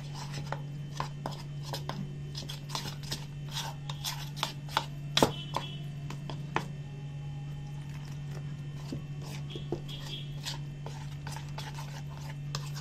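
Metal spoon stirring and beating gram-flour batter in a bowl: irregular clicks and scrapes as the spoon hits the bowl, thicker in the first half and sparser later. A steady low hum runs underneath.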